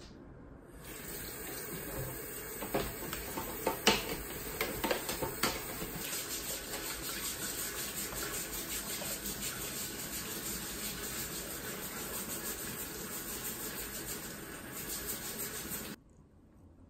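Kitchen tap running steadily into the sink while vegetables are rinsed under it, with a few knocks and clatters a few seconds in. The water sound stops abruptly near the end.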